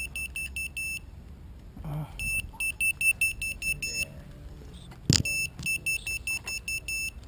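Electronic beeper on a homemade quadcopter sounding runs of short, high, even beeps, about six a second in groups of several, as its battery and electronics are handled on the ground. A sharp knock of handling sounds about five seconds in.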